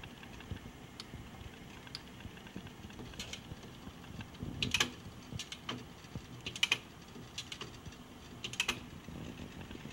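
Hardinge DV-59 lathe's six-position end-working turret being indexed by hand: a few light clicks, then three louder metallic clacks about two seconds apart as it locks at each station.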